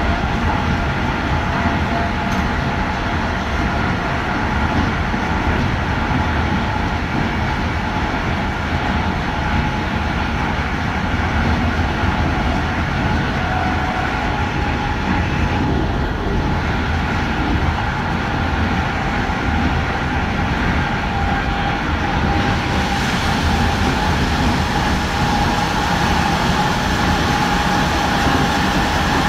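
Passenger train running along the track, heard from inside its rear cab: a steady rumble and hiss of wheels on rail, with a faint steady whine.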